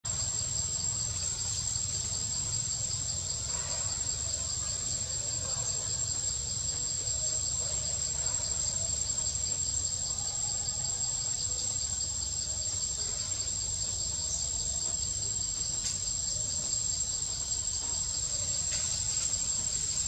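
Insects calling steadily: an unbroken high whine with a pulsing trill just below it, over a low rumble.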